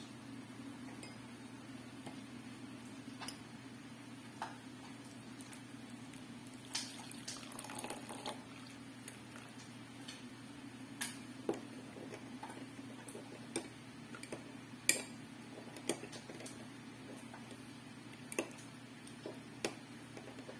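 Quiet, scattered clicks and taps of a spoon against a glass bowl, with a short pour of liquid into the bowl about seven seconds in. A steady low hum runs underneath.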